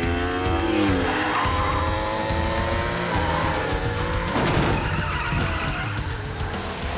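Several motorcycle engines revving hard, their pitch rising and falling as the bikes race at speed, with a noisy rushing surge like a tyre skid about four seconds in.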